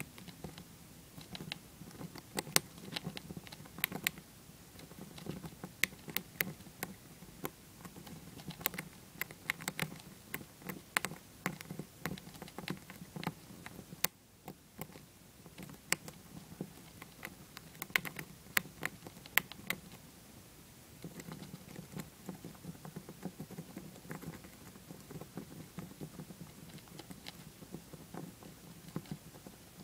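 Dwarf hamster gnawing a shelled peanut up close: a rapid, irregular run of small sharp crunching clicks, with a brief pause about halfway through and sparser clicks near the end.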